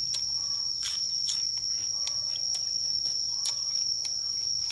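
Insects trilling in one steady, unbroken high-pitched tone. Over it, a string of short clicks and crunches of chewing on fresh greens comes every second or so.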